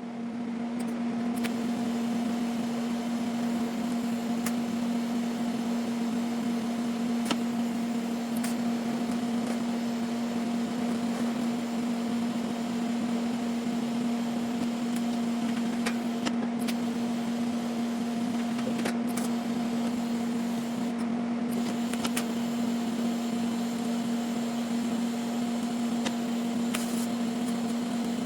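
Steady machine hum with a constant low tone that does not change, and a few faint clicks scattered through it.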